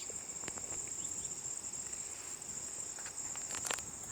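Steady high-pitched insect trill, with a few sharp clicks, the loudest about three and a half seconds in.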